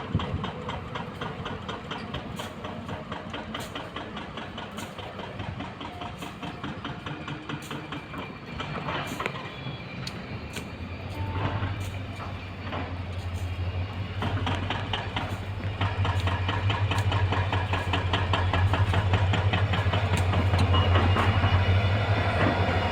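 Goods train rolling past, its wagon wheels clicking steadily over the rail joints. About halfway through, a locomotive's deep steady hum comes in and grows louder as it draws near.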